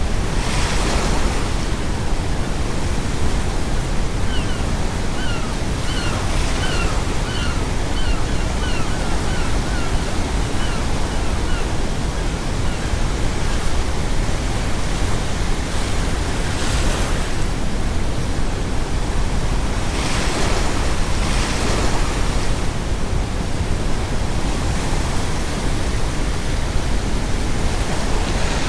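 Ocean waves crashing on the shore in several surges over a steady brown noise. A seagull calls a rapid string of about a dozen short notes from about four to twelve seconds in.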